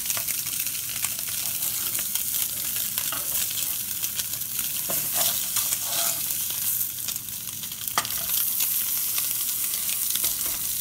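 Slices of Spam sizzling steadily in a hot non-stick frying pan, "frying like bacon", with short scrapes and clicks now and then as the slices are turned with a metal spatula.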